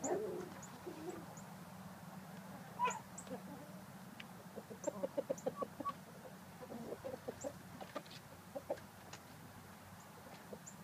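Gamefowl roosters clucking in short runs of quick low clucks, the busiest run about five seconds in, with faint brief high chirps.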